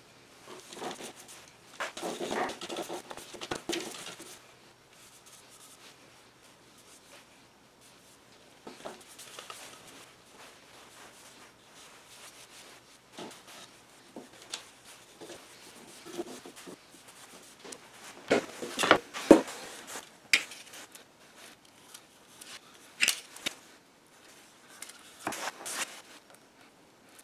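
Scattered scrapes, rubs and taps from hand work at a wooden workbench: a wooden stir stick stirring and scraping in a can of wood stain, then a pencil scratching on wood near the end. The loudest are a few sharp knocks a little past halfway.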